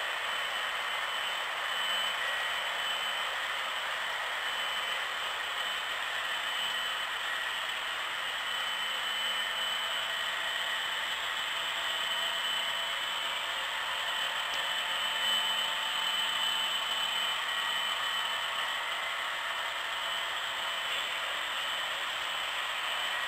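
Metal wheels of HO scale model autorack cars rolling over the track, a steady light rushing clatter with a faint high whir running through it.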